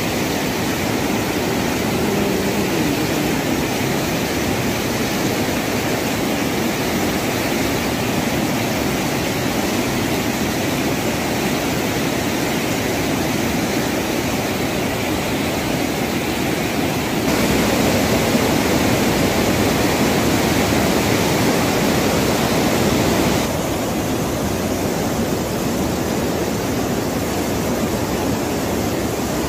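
Steady rushing noise of heavy rain and flowing floodwater, with no voices. It shifts abruptly twice: louder and deeper from about 17 s in, then back to a thinner hiss about 23 s in.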